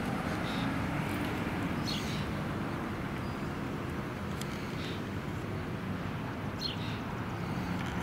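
Steady road traffic: a motor vehicle's engine humming under tyre and road noise, with a few brief high chirps over it.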